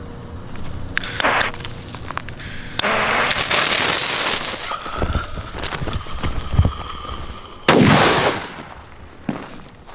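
Tornado firecracker bomb set in a plastic pipe: its lit fuse hisses, then it goes off with one loud bang about three-quarters of the way through, the blast dying away over about a second.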